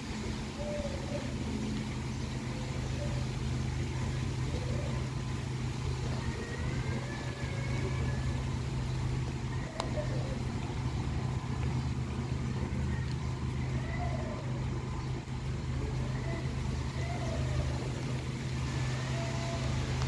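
A steady low hum of an engine or motor running at a constant speed, over an even rush of wind through the trees.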